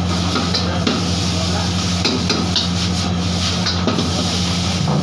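Metal ladle scraping and clacking against a steel wok as noodles are stir-fried, with light sizzling over the steady rushing hum of a high gas flame.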